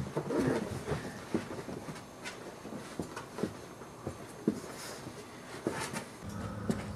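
An adult boxer and a boxer puppy playing with a plush toy on carpet: scattered soft knocks and scuffles of paws and mouthing, with a few low rough sounds near the start. A steady low hum comes in near the end.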